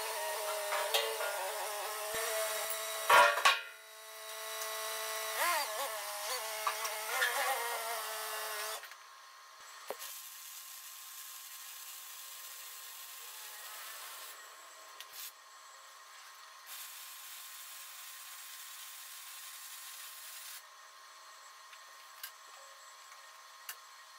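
Hyster forklift engine running and revving up and down as it lifts the steel bucket, with a sharp clunk about three seconds in. After about nine seconds it gives way to a quieter, steady hiss of arc welding on the bucket's underside.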